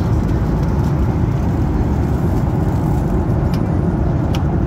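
Steady low rush of Boeing 737-800 cabin noise in cruise: airflow and engine noise heard from a window seat, with two faint clicks near the end.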